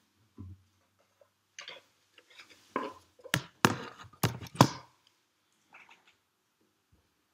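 Handling noise: some scraping and rustling, then a quick run of about five sharp knocks and clacks, as objects and a cello are moved about.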